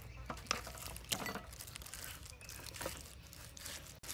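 Kitchen knife scoring raw chicken legs on a wooden chopping block: a few light, scattered taps and clicks as the blade meets the board and the meat is handled.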